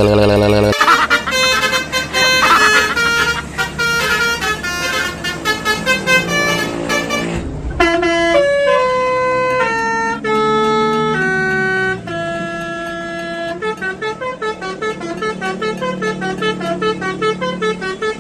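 Telolet bus horn of the Basuri type, a multi-tone air horn, playing a melody as a run of stepped notes. It ends in a fast back-and-forth between notes.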